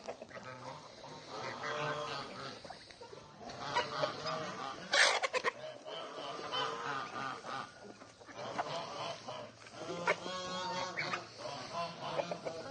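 Domestic poultry calling repeatedly, goose-like honks among them, with one loud short noisy burst about five seconds in.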